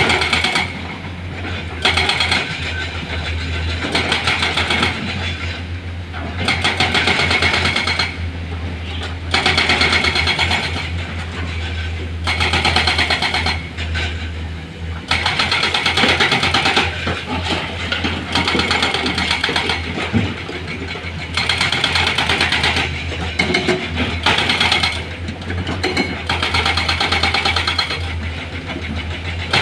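Heavy diesel engine running with a steady low rumble, surging louder in repeated bursts of a second or two, every two to three seconds.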